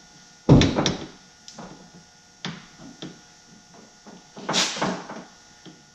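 Clunks and knocks of a VW bay-window bus sliding door being worked onto its track by hand: a heavy thump about half a second in, scattered lighter clicks, then another cluster of knocks near the end.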